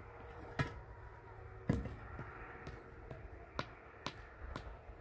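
Irregular sharp taps and knocks, about half a dozen, the loudest a dull knock a little under two seconds in.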